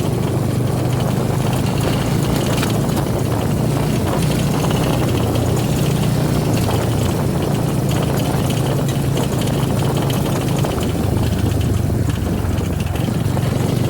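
Suzuki V-Strom 250 SX's single-cylinder engine idling steadily, with a rattling noise running through it.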